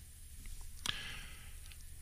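Faint room tone in a pause between a man's spoken sentences, with one small sharp click a little before the middle.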